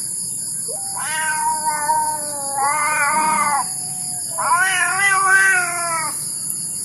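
Domestic cat yowling: three long, drawn-out meows, the last the longest.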